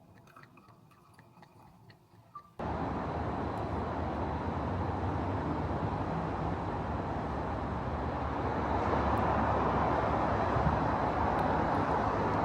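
A few seconds of quiet room sound with faint clicks, then an abrupt switch to the steady noise of city traffic outdoors, which grows a little louder about eight seconds in.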